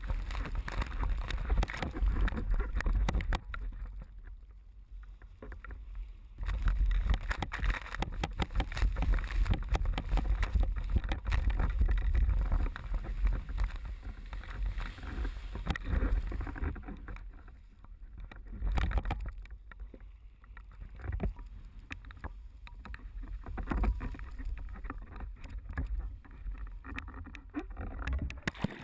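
Water rushing and slapping against a slalom windsurf board under way, with wind buffeting the microphone in a heavy rumble. It gets louder and quieter in long swells as the board speeds up and eases off.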